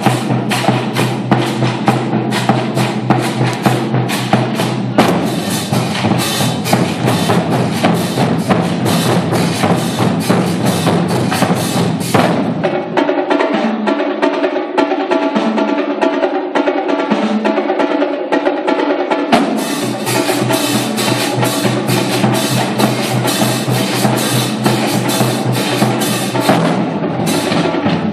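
Drum line playing marching snare drums, bass drums and crash cymbals in a rapid cadence. About twelve seconds in the low bass drops out for several seconds, leaving a lighter passage, then the full line comes back in.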